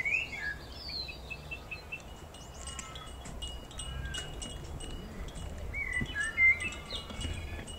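Small birds chirping and whistling: short rising and falling calls with a held high note in the middle, over a low wind rumble.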